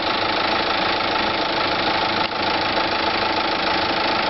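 Kia Bongo III's J3 common-rail diesel idling steadily with a knocking clatter. The owner ties the knock to air in the fuel supply after fitting new Delphi injectors.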